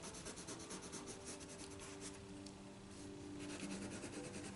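Orange coloured pencil scratching on paper in quick, faint up-and-down strokes as it colours in.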